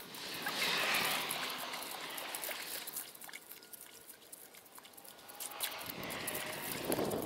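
Ice skimmer scooping slush and ice chips out of a freshly cut hole in pond ice, water trickling and pouring off the scoop. It is loudest about a second in and again near the end, quieter in between.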